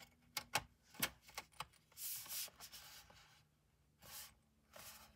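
Hands pressing and sliding on the aluminium bottom case of a MacBook Pro, pushing it down to seat its tabs: a few faint clicks in the first second and a half, then several short, soft rubbing swishes.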